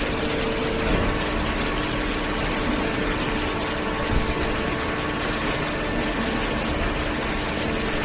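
Paper baler's hydraulic power unit running: a steady machine hum with a few held tones.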